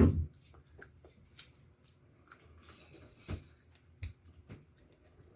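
Close-miked eating noises at a meal: a heavy low bump right at the start, then a few scattered soft clicks and taps.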